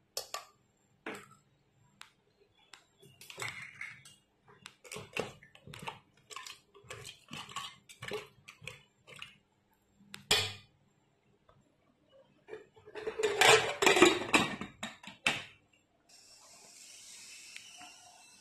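Corn cobs being shifted around in a pressure cooker pot, with scattered knocks and clatters against the metal and a denser, louder burst of clattering a couple of seconds before the end. Near the end it gives way to a steady faint hiss.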